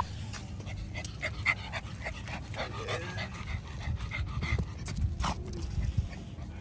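A dog panting, with scattered light clicks and rustles around it.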